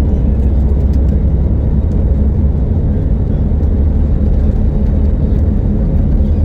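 Steady low rumble of engine and airflow noise inside the cabin of an Airbus A320neo-family airliner.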